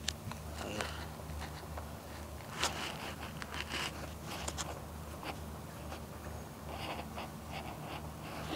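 Scattered clicks, scrapes and rustles of a phone being handled and moved about, with a loud knock about two and a half seconds in, over a low steady hum.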